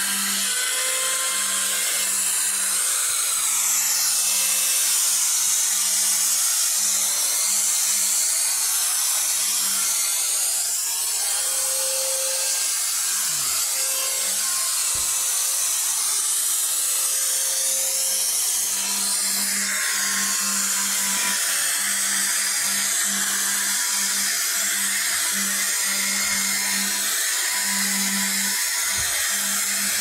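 Electric drill with a wire brush wheel running steadily, the wire bristles scrubbing across the sheet-metal washing machine cabinet to strip rust and old paint. A motor hum fades and returns as the load on the brush changes.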